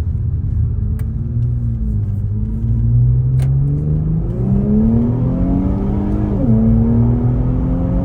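Infiniti VR30 twin-turbo V6 with a Tomei single-exit exhaust, accelerating under load: the note climbs in pitch, dips briefly about two seconds in, climbs again, and drops sharply about six and a half seconds in, as at an upshift, before climbing once more.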